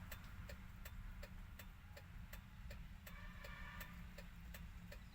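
Faint, regular mechanical ticking, about three ticks a second, over a low steady hum.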